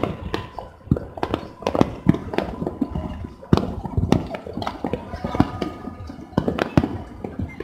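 New Year fireworks and firecrackers going off all over a city: an uneven run of sharp bangs and pops, a few close and loud, the rest farther off.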